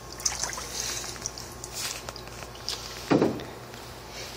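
Hand splashing and sloshing water in a test tank, with small drips and ripples and one louder splash about three seconds in.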